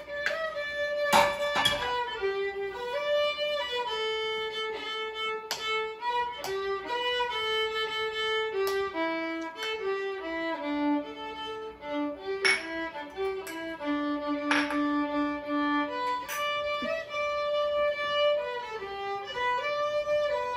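Background music: a violin playing a slow melody of held notes with a few slides between them. A few sharp clicks sound over it, the loudest about a second in.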